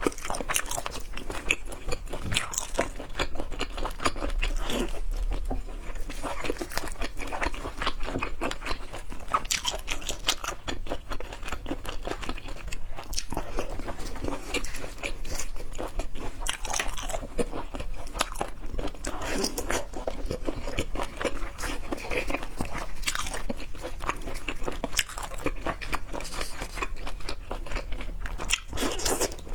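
Close-up eating sounds: continuous chewing and crunching with many small wet clicks, from seafood being eaten.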